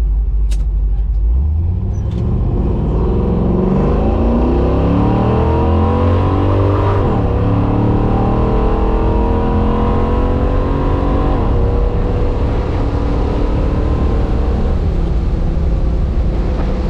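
1967 Chevy Nova's engine under hard acceleration, pitch climbing steadily, with two sudden drops in revs at the gear changes, one about seven seconds in and one about eleven seconds in.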